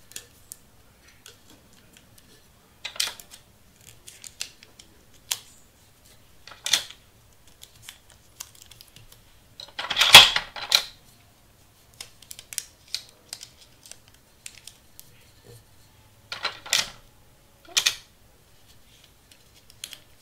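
Paper and tape handling: a sublimation print rustling as it is wrapped around a glass tumbler, with short clicks and rips of tape pulled from a desktop dispenser and cut, the loudest about ten seconds in.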